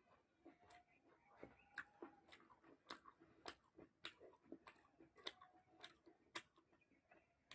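A person chewing puri with chana dal sabji, with sharp wet mouth clicks and smacks about every half second.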